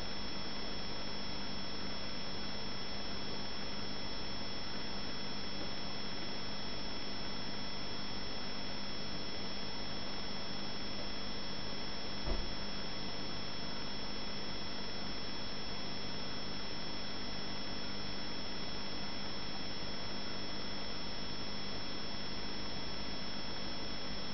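Aquarium bubbles and tank equipment: a steady hiss with a constant hum running under it. One brief low thump about halfway through.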